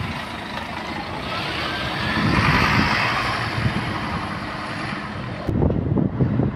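A Translink Goldline coach drives past and away, its engine and tyre noise swelling to a peak about two and a half to three seconds in, then fading. From about five and a half seconds in, wind gusts on the microphone take over.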